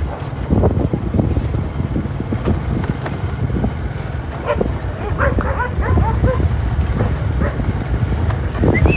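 Dogs barking several times over the steady running of a motorbike and wind noise on the microphone, with a short rising whistle near the end.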